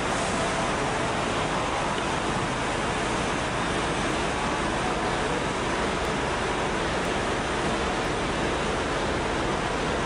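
Steady, even rushing noise of city street traffic, with no distinct events standing out.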